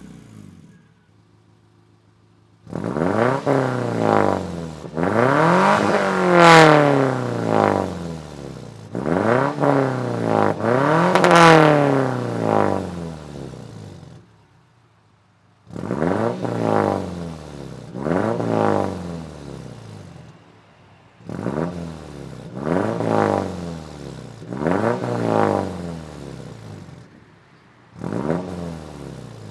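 1998 Subaru Legacy GL's 2.0-litre flat-four boxer engine being revved while standing: two long revs that climb and fall back, then a series of shorter, quicker blips, settling to a quiet idle between.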